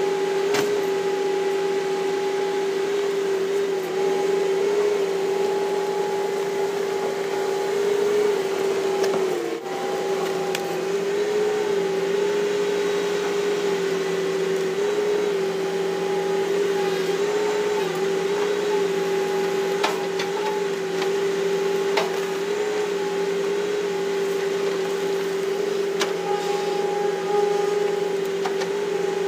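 Hitachi Zaxis 200-5G excavator's diesel engine and hydraulic pump running steadily under working load, heard from the operator's cab: a steady whine that wavers slightly in pitch, dipping briefly about nine seconds in, with a few faint clicks.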